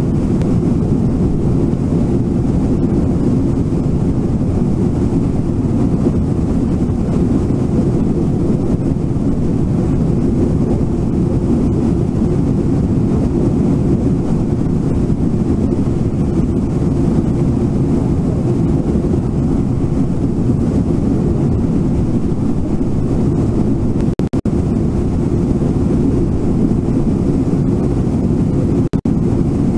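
Steady low rush of a fast-flowing river over its rapids, with two brief dips near the end.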